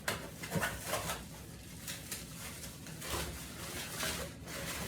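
Light knocks, clicks and rustling from a monitor stand's parts and their packaging being handled. There are a handful of short knocks, the clearest near the start, just after half a second in, and around three and four seconds in.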